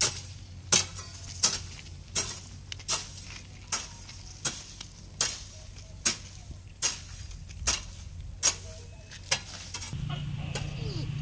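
A hoe chopping into sandy garden soil while weeding, with about thirteen sharp strikes at an even pace of roughly four every three seconds. Near the end a low steady engine hum comes in.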